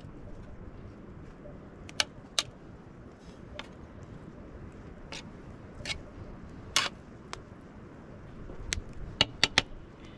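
A metal utensil clinking and scraping against a metal cooking pot as spaghetti is stirred and lifted, in sharp irregular clicks over a steady low background hiss, with a quick run of three clinks near the end.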